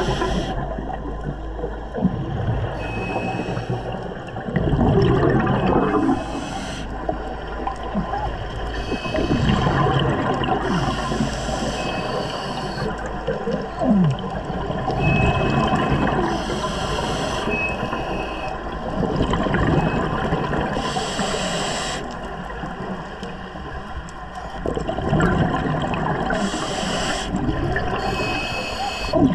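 Scuba diver breathing underwater through a regulator: a hiss on each inhale and a gurgling rush of exhaust bubbles on each exhale, about one breath every five seconds.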